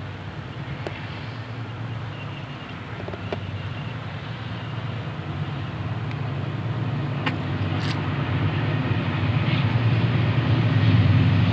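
Conrail diesel locomotives approaching at the head of an intermodal train, their engine rumble growing steadily louder.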